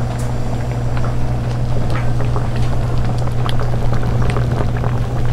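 Food bubbling and crackling as it cooks, with many small pops over a steady low hum; the pops grow busier about two seconds in.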